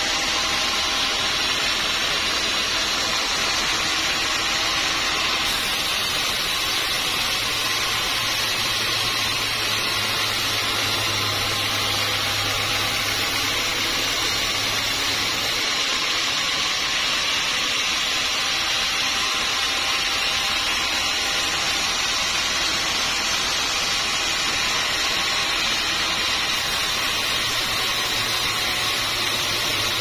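Band sawmill blade sawing lengthwise through a dry teak log: a steady, even sawing noise that does not let up, over the low hum of the mill's drive.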